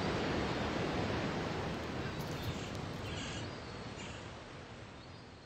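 Outdoor background noise, an even hiss with no clear single source and a few faint high sounds around the middle, fading out gradually to silence.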